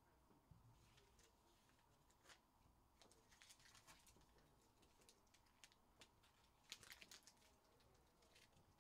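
Near silence with faint, scattered clicks of a computer keyboard and mouse being used, busiest in the middle of the stretch.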